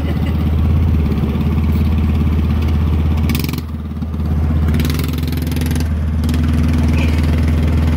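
Mini bike's small single-cylinder engine running, easing off briefly about four seconds in and then picking back up.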